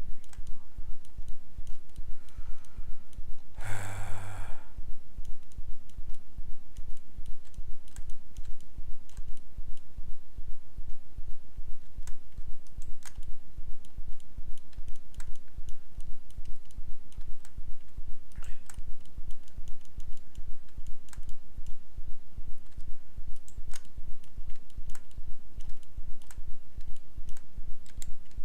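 Scattered computer keyboard and mouse clicks over a steady low electrical hum, with a short sigh or breath about four seconds in.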